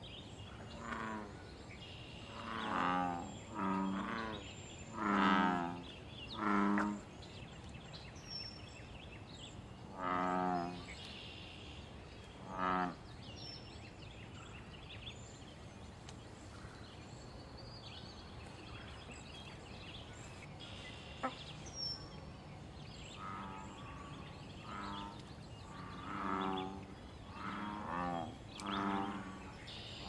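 Male American bullfrogs calling: deep, droning calls, each under a second long, in bouts. About six calls come in the first seven seconds and two more follow singly, then after a quiet stretch another bout of about six calls comes near the end.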